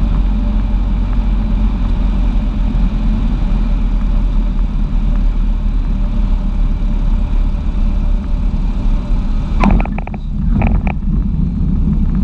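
Cessna 150's four-cylinder piston engine and propeller running steadily, a loud, even drone. About ten seconds in, two short higher-pitched sounds cut briefly through it.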